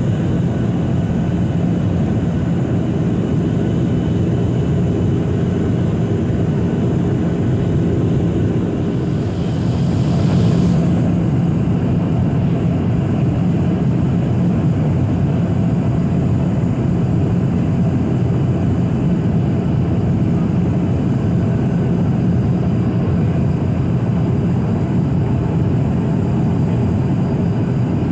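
Steady in-flight cabin noise of a Boeing 737-800 heard from a window seat over the wing: the low hum of its CFM56-7B turbofan engines under a rush of airflow. The hiss swells briefly about ten seconds in, then settles back.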